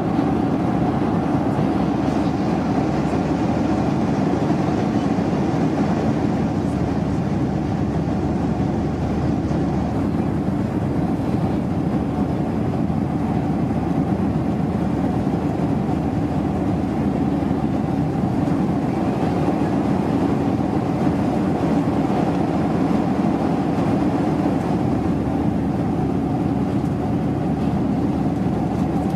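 Steady drone of an airliner cabin in flight: engine and airflow noise heard inside the passenger cabin, unchanging throughout.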